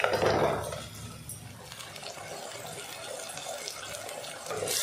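Shallots and garlic frying in oil in a clay pot, a steady sizzle, with a wooden spatula stirring them through the first second.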